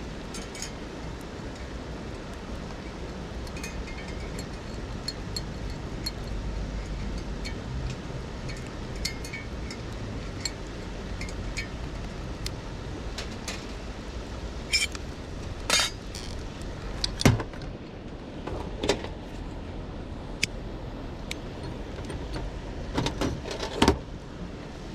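Steady rushing of a river, with a few sharp clinks and knocks over it in the second half, the loudest about seventeen seconds in.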